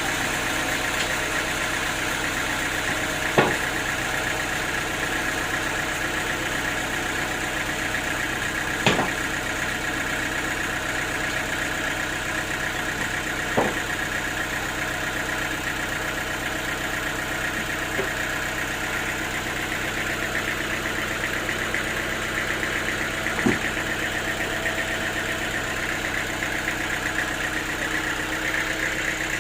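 Portable sawmill's engine running steadily under a constant high whine, with four sharp knocks spaced unevenly.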